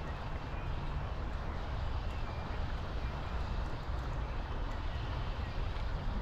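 Steady rushing of the river's current, with a low uneven rumble underneath.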